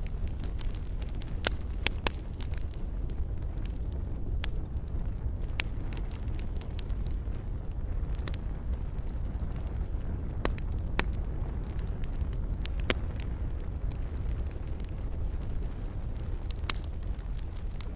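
Wood fire in a fireplace crackling: irregular sharp pops and snaps over a steady low rumble, with a handful of louder pops scattered through.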